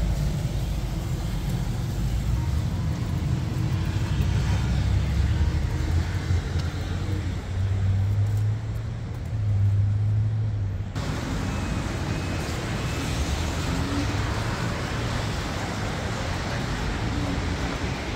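Steady low rumble of road traffic going past, changing abruptly about eleven seconds in.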